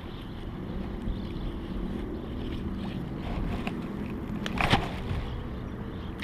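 Low steady outdoor rumble of wind on the microphone, with one short knock or clatter about four and a half seconds in.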